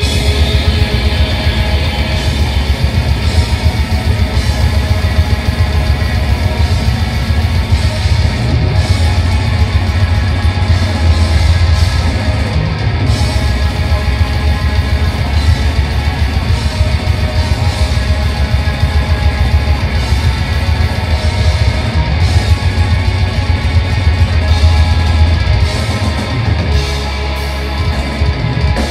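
Black metal band playing live at full volume, distorted guitars over fast, dense drumming, coming in all at once at the start.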